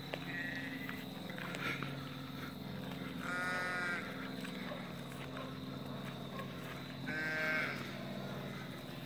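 Two drawn-out farm-animal calls, each under a second, about three and a half seconds apart, with a few fainter short calls before them. A steady low hum runs underneath.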